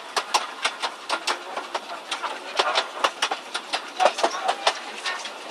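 Miniature ride train's wheels clicking over the rail joints at about four clicks a second as the train runs along.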